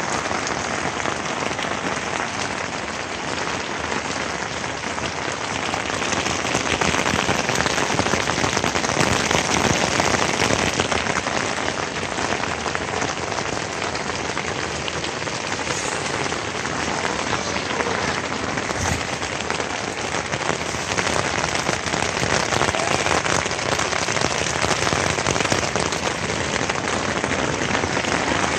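Steady rain falling on a tent's fabric, heard from inside the tent, loud and continuous, growing somewhat heavier for a few seconds after about six seconds in.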